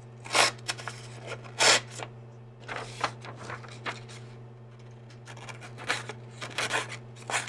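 A knife blade drawn through a sheet of paper in a sharpness test, giving a series of short, irregular ripping and rasping strokes as the edge tears through the paper.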